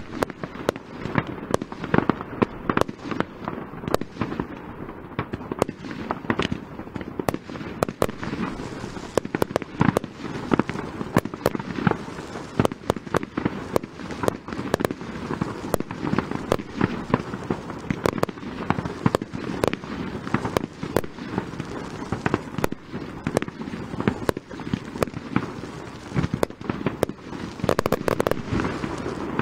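Fireworks display: a dense, unbroken run of shell bursts, bangs and crackle, several sharp reports a second.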